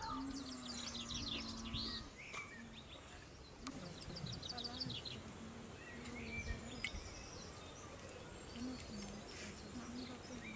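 Small birds chirping and trilling in quick runs of notes over a background hiss, with a few sharp clicks scattered through.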